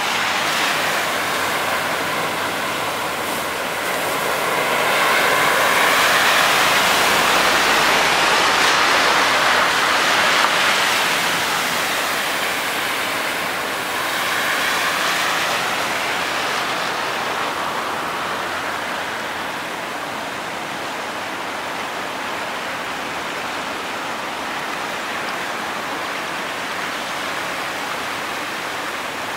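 Vehicles driving through floodwater on a road, their tyres throwing up a rushing spray of water. The sound swells twice, most strongly from about five to ten seconds in as a semi truck passes and again about fourteen seconds in as an SUV splashes through, then settles to a steadier, lower rush.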